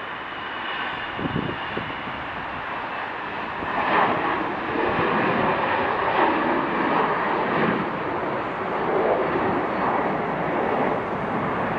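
Jet airliner's engines at takeoff thrust as it lifts off and climbs away, a wide rushing noise that swells about four seconds in and then wavers. A couple of brief low thumps come just over a second in.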